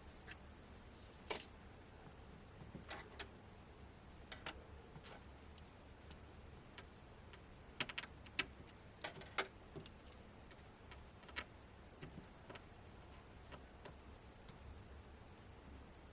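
Small sharp clicks and taps at irregular intervals, bunched together in the middle: tools and small parts being handled while opening up a tablet. A faint steady hum sits underneath.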